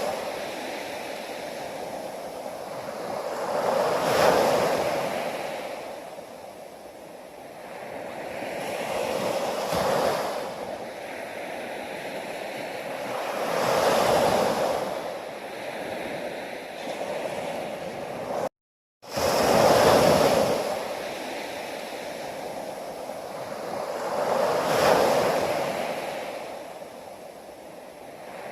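Ocean waves breaking and washing on the shore, a rushing surge swelling and falling back about every five seconds. The sound cuts out for an instant about two-thirds of the way through.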